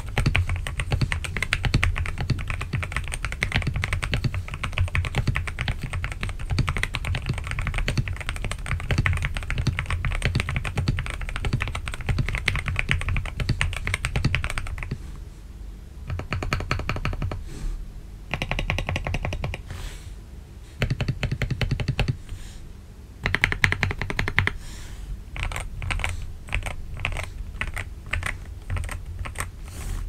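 Fast typing on a GMK67 mechanical keyboard fitted with Gateron G Pro 2.0 Yellow linear switches, PBT XDA keycaps and a foam-filled, tape-modded case. A dense, unbroken run of keystrokes fills the first half. About halfway in it breaks into shorter bursts with pauses, ending in separate key presses.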